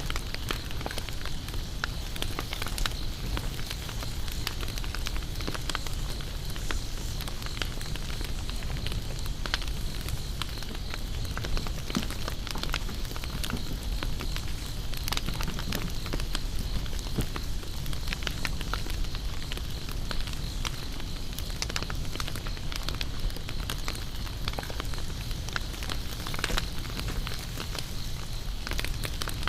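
Wood campfire crackling, with frequent small pops and snaps. A steady high drone of insects runs underneath.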